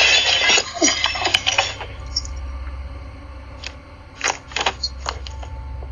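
Car crash picked up by a doorbell camera's microphone: a loud, noisy crash of impact and clattering in the first two seconds, then scattered sharp clinks and ticks of falling debris over a steady low hum.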